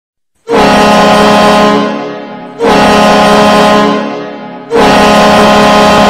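Ice hockey goal horn sounding three long blasts of one steady low pitch, each fading away before the next; the first starts about half a second in and the third is still sounding at the end.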